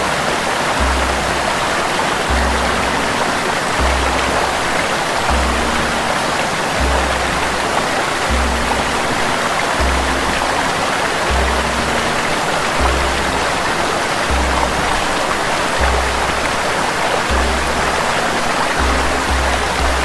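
Steady rushing of a small waterfall cascading over rock ledges, with background music laid over it: a soft, deep bass note about every second and a half and faint held notes.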